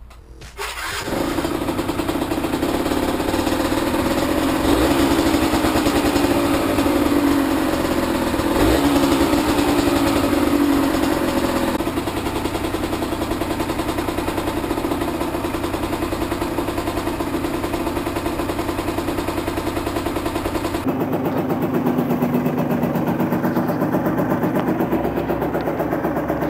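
Derbi GPR 125 motorcycle engine starting about a second in, then running at a fast idle as it warms up, with the revs rising briefly a couple of times. Near the end the sound changes abruptly.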